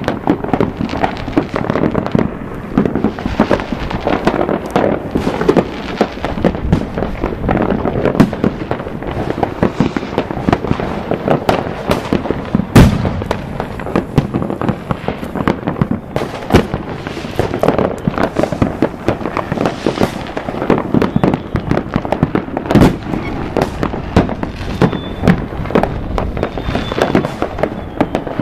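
Fireworks display: a continuous barrage of rocket and aerial-shell bangs and crackling, with one especially sharp bang a little before halfway.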